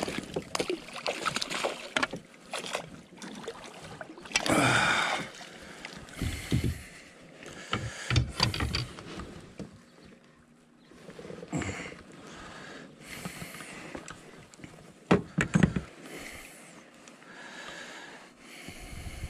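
Irregular splashes, knocks and rustling of gear and water around a fishing kayak, coming in short bursts.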